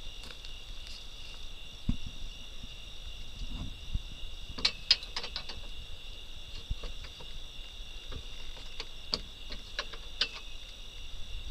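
Steady high-pitched chorus of night insects such as crickets. Over it come scattered light clicks and knocks, a cluster of them about halfway through, as a rope is tied onto the metal roll cage of a side-by-side utility vehicle.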